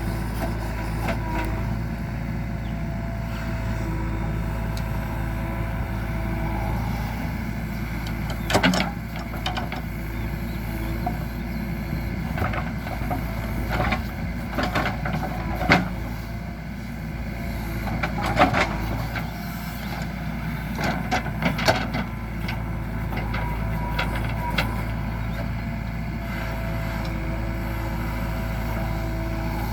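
JCB 3DX backhoe loader's diesel engine running steadily under load, with a held whine at the start and again near the end. In between come a series of sharp clanks and thuds as the machine works.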